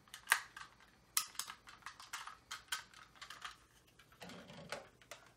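Irregular plastic clicks and snaps from a small plastic transforming toy vehicle being handled and its parts folded into place, with a brief soft rustle about four seconds in.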